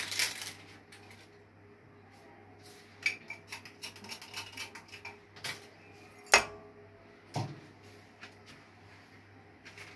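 Scattered light clicks and clinks of kitchen things being handled by a stainless-steel mixing bowl, with a sharper knock about six seconds in and another about a second later, over a faint steady low hum.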